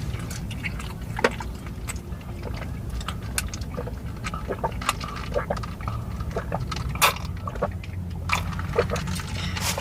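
Wet chewing and lip smacking from eating, a string of short irregular clicks and smacks over a steady low hum.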